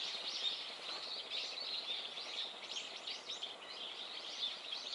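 Small birds chattering: many short, high chirps overlapping without a break.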